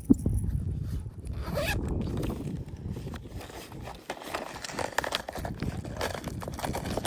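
Handling noise: irregular scraping and rustling, with a couple of quick rising zip-like strokes.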